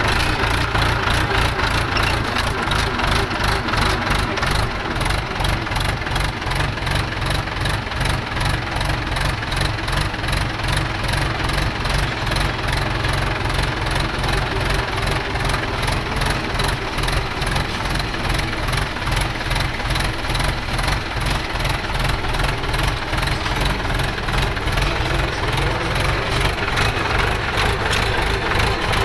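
Farm tractor's diesel engine running steadily during field levelling work, heard from the driver's seat beside the exhaust stack, with an even, rapid pulse.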